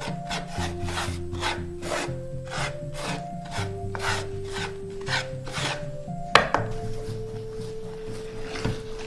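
Hands kneading egg-and-flour pasta dough on a wooden board: rhythmic rubbing and pressing strokes, about three a second, with one sharper knock on the board about two-thirds of the way through. Steady musical tones run underneath.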